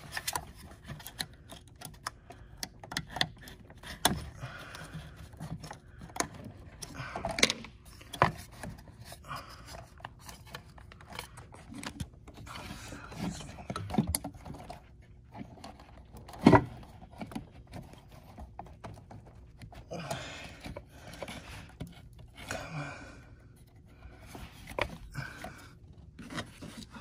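A small pick and fingers working at a tiny retaining clip on an engine intake: irregular light clicks, taps and scrapes of metal on plastic, with soft rustling, and one sharp loud click about two-thirds of the way through.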